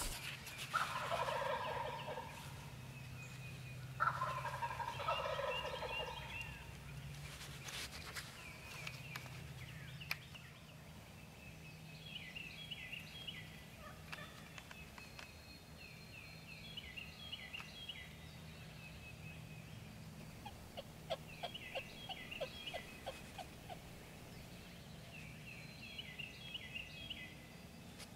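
Wild turkey gobbling: two loud rattling gobbles, about a second in and about four seconds in, then songbirds singing repeated high phrases through the rest.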